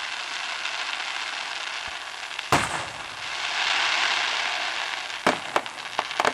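Aerial fireworks shells bursting, with a continuous crackle from the burning stars. One loud bang comes about two and a half seconds in, and a quick run of sharper bangs near the end.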